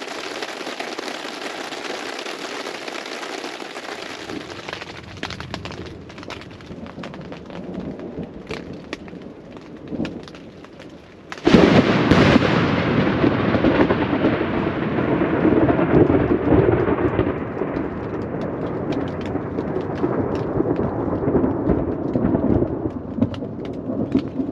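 Steady rain on a tent with scattered drop ticks. About halfway through, a sudden, very close thunderclap from a lightning strike right overhead breaks in, much louder than the rain, and rumbles on, slowly fading over the following seconds.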